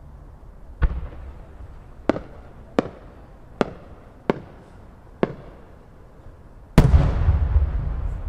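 Fireworks going off: six sharp bangs about a second apart, then, near the end, a much louder deep boom of a large aerial shell bursting, its rumble rolling on.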